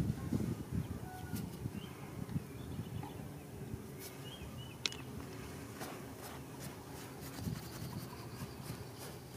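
Hands rustling and scraping through loose, dry soil, with small stones clicking now and then.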